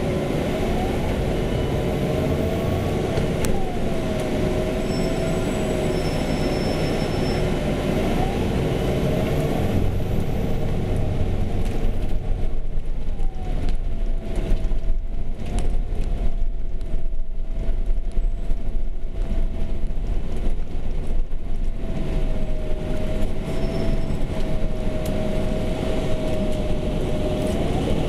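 A city bus running through town, heard from inside: a steady low rumble with a drive whine that rises and falls in pitch as the bus speeds up and slows. A second steady hum fades out about nine seconds in.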